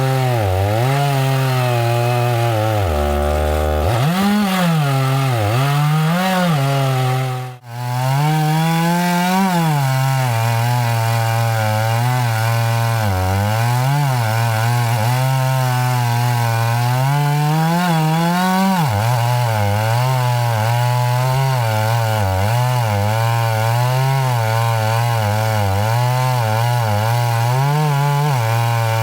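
Two-stroke chainsaw cutting through pine, its engine pitch sagging and rising as the chain loads up in the wood. It drops back toward idle about three seconds in, and the sound breaks off for a split second around seven and a half seconds.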